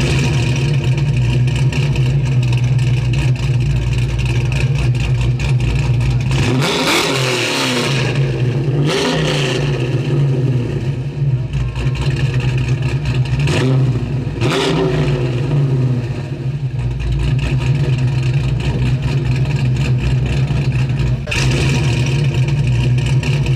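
Car engine idling with a steady low note, revved several times in short blips: two about a third of the way in and two more just past the middle.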